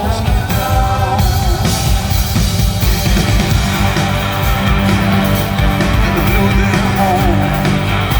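Live rock band playing loudly, with a steady drum beat, bass and guitar.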